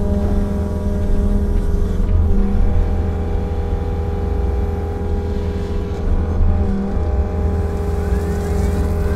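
Compact excavator's diesel engine and hydraulics running steadily under load, heard from inside the cab, with a slight change in pitch as the boom and bucket move and a faint rising whine near the end.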